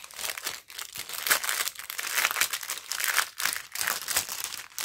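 Plastic packaging crinkling as a strip of small plastic bags of diamond-painting rhinestones is handled. It is a dense, irregular run of crackles.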